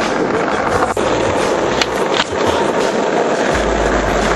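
Skateboard wheels rolling over concrete with a steady rumble, broken by a few sharp clacks of the board.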